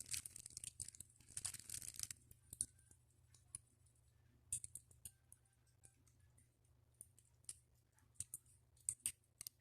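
Near silence with faint, scattered clicks and crackles, denser in the first two seconds and then a few irregular ticks each second.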